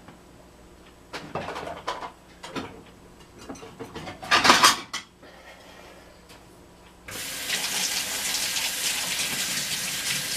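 A few knocks and clatters of kitchen things, loudest about four and a half seconds in, then a kitchen tap turned on about seven seconds in and running steadily.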